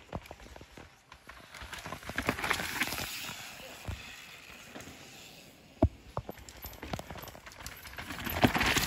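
Downhill mountain bike passing on a dirt trail: tyres scrabbling over dirt and roots, swelling and fading over a couple of seconds, with scattered knocks and clicks afterwards.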